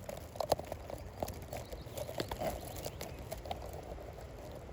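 Vegetation rustling and crackling close to the microphone, a run of irregular light clicks as leaves and twigs are pushed aside.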